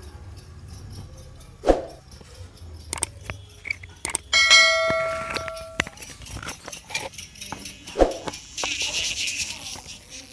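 Handling clicks, then about four seconds in a short chime of several ringing tones lasting about a second and a half. Near the end music starts playing thinly from the earbud speaker of a KDM Bluetooth neckband, its rewired earbud now working.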